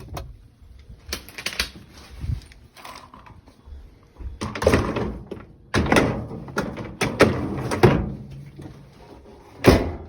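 Dishwasher being reassembled: a string of clunks and knocks as the filter and parts are fitted back and the machine closed up, with the loudest clunk near the end.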